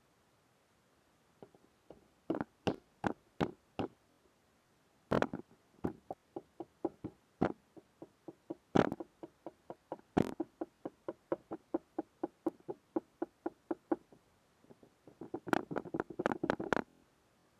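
Slime being played with: a run of short wet clicks and pops, about three to four a second, with a quicker, denser burst near the end.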